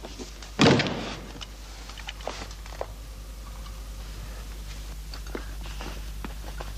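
A single loud knock or thud about half a second in, then scattered small clicks and taps of objects being handled, over a steady low hum.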